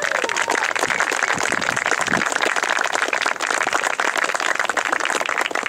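Crowd of guests applauding steadily after the couple's kiss, with a few cheering whoops near the start.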